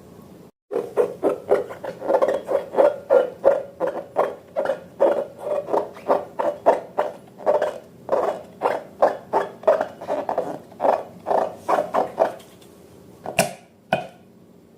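Slime squelching as it is worked over and over, a rhythmic wet squish about two or three times a second that stops near the end, followed by two sharp clicks.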